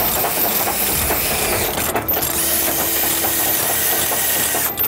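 Cordless drill running under load, driving a Speedbinder chain binder tight, with the clicking of a hand-cranked ratchet chain binder. The drill stops just before the end.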